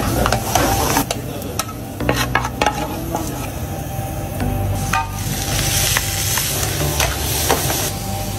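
A metal ladle scraping and clinking against a metal frying pan as food is stirred, over frying sizzle. About five seconds in, the sizzling hiss grows stronger.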